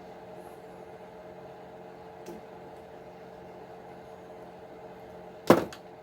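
Steady background hum with a few fixed tones, a faint click about two seconds in, and a single sharp clack near the end.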